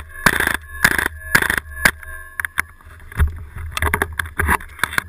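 WE PDW gas blowback airsoft rifle firing semi-auto at about two shots a second, each shot a short blast of gas with the bolt cycling. In the last three seconds, quicker and irregular sharper clicks follow.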